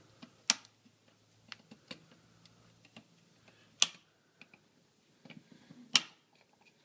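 Wire cutters snipping through the old outlet's copper house wires, three sharp snaps a couple of seconds apart, with light ticks of the wires and tool being handled in between.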